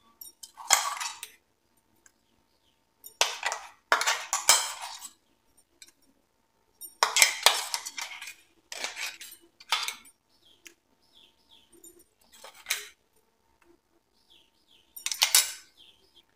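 A spoon scraping and knocking thick ground peanut chutney out of a mixer-grinder jar into a plastic bowl. It comes as irregular short bursts of scraping and clinking, about eight in all, with gaps between them.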